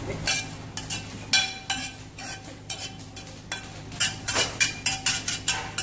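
A metal spoon scraping and knocking against a stainless steel sauté pan as food is scraped out onto a plate: a dozen or so irregular clinks and scrapes, some leaving a brief ring from the pan.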